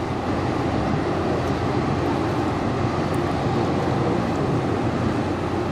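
Steady low rumble of a passing bulk carrier's diesel engine and propeller, with the churning of its stern wash over it.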